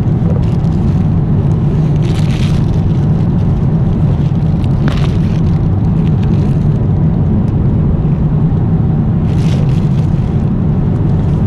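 Steady low drone of an airliner cabin in flight, with a few brief plastic crinkles from a packaging bag being handled.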